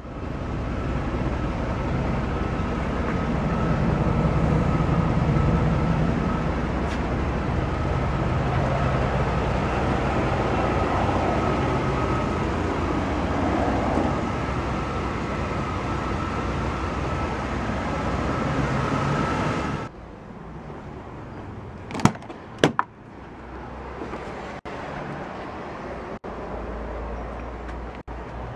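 Steady outdoor vehicle and traffic noise with a low rumble and a constant thin whine. After a sudden drop to a quieter background, two sharp clicks sound close together, like a car door latch being opened.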